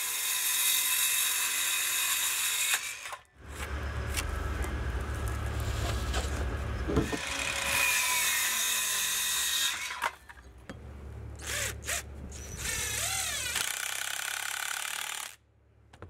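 DeWalt cordless circular saw cutting pressure-treated 2x4 lumber in two cuts: the first breaks off about three seconds in, and the second runs longer. Near the end come a few sharp knocks and a power-tool motor wavering up and down in pitch.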